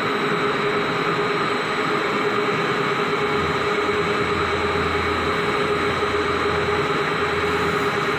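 CNC lathe running, its spindle turning a metal shaft while the tool cuts, a steady machine whine over a noisy hiss. A deeper hum comes in about three and a half seconds in.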